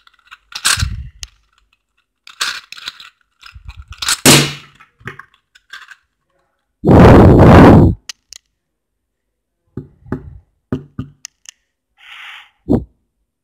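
Meffert's Gear Ball twisty puzzle being turned by hand, its plastic gears clicking and clacking in scattered bursts. A loud rough rush of noise lasts about a second near the middle.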